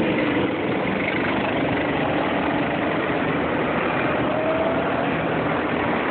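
Racing go-kart engines running: a kart pulls away and its engine note fades as it drives off down the track, over the steady sound of other karts. A rising engine note comes in about four and a half seconds in.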